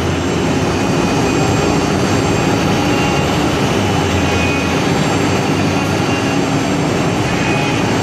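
Multi-head 4-axis wood CNC router running, its spindles machining wooden sofa legs: a loud, steady whirring noise with a low hum underneath.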